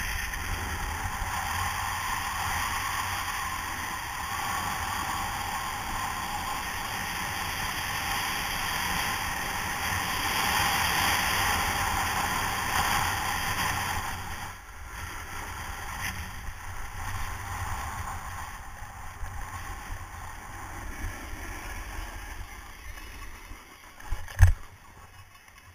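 Steady rushing noise of a fast downhill run on packed snow: wind over the camera and the sliding hiss of the run. It drops off about halfway through as the run slows, and there are a couple of sharp knocks near the end.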